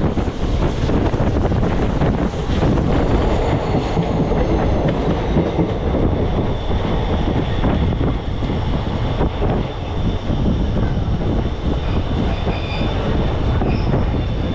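A passenger train running, heard from an open coach door: a steady loud rumble and clatter of wheels on the rails. Thin high squeals join in from about halfway through as the train runs into a station.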